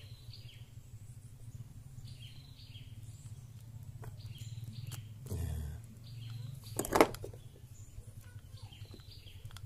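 Small clicks and scrapes of needle-nose pliers and fingers working a new, tight-fitting carbon brush into an angle grinder's brush holder, with one sharp click about seven seconds in, the loudest sound. Birds chirp repeatedly over a steady low hum.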